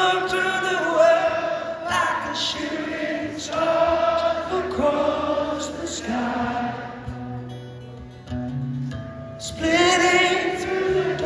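Live rock concert: sung melody with long held notes, over acoustic guitar, with a louder phrase at the start and another near the end.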